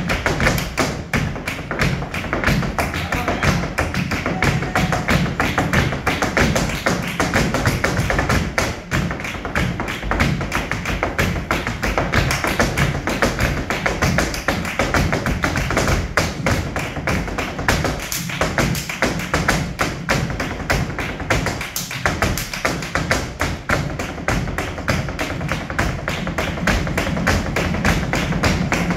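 Flamenco zapateado: a dancer's heeled shoes striking the stage in fast, dense stamps and taps, with hand-clapping palmas and flamenco guitar underneath.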